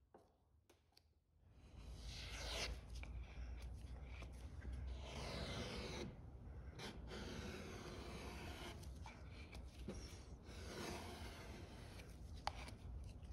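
A small spreader scraping filler into screw holes along a wooden dinghy's keel: soft, repeated scraping strokes over a low steady hum, starting about two seconds in after a near-silent moment with a few faint clicks.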